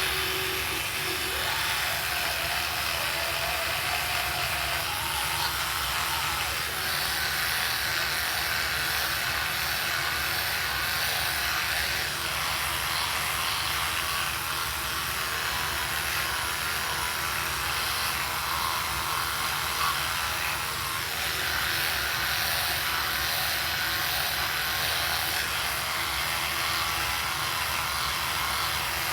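Oral-B Smart 5000 rechargeable electric toothbrush running with a steady buzz.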